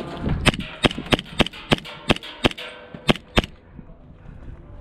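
Airsoft guns firing: about nine sharp, irregularly spaced shots over three seconds, stopping about three and a half seconds in.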